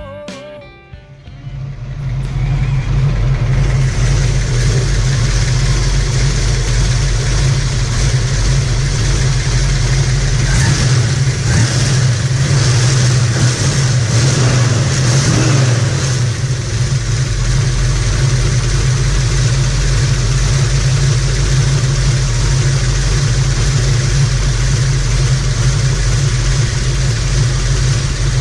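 Dodge Challenger R/T's 440 Magnum big-block V8 running with a steady, deep exhaust note, the sound unsettled for a few seconds in the middle, then cutting off just before the end.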